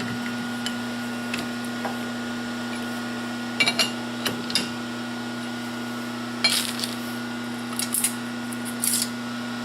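Metal workpieces and small pieces clinking and clattering against each other and the lathe's chuck as they are handled, a few scattered knocks, over a steady machine hum.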